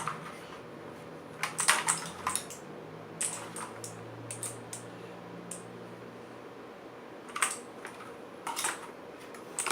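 Clicky blue switches of an ABKO Hacker K2000 mechanical keyboard being typed on in short, irregular flurries of keystrokes, with pauses between them.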